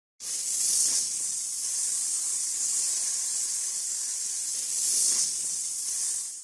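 Steady high-pitched hiss of a compressed-air spray, swelling slightly about a second in and again near five seconds, starting and cutting off abruptly.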